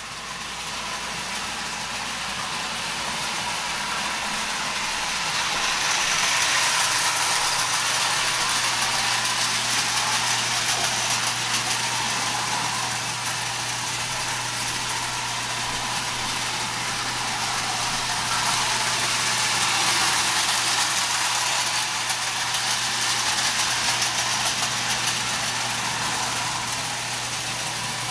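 Marx tinplate toy trains running on tubular three-rail track: a steady whir of the small electric motors and rattle of tin wheels on the rails, swelling louder twice as a train passes close by. A low, even hum runs underneath.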